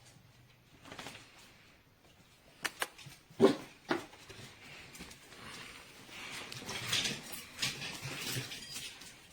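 A dog playing with a plush toy: a few short, sharp sounds about three to four seconds in, then a longer stretch of rustling handling noise.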